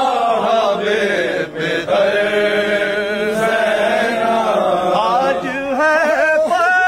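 A man's unaccompanied voice chanting an Urdu Shia lament (soz, a marsiya for Imam Ali), drawing out long wavering notes that slide up and down, with a long steady note held near the end.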